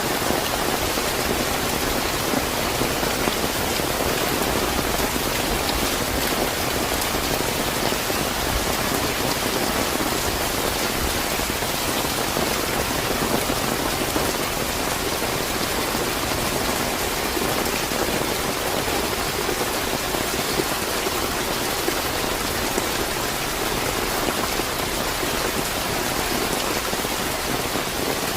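Steady, fairly heavy rain falling, a dense even hiss of drops on surfaces with no thunder.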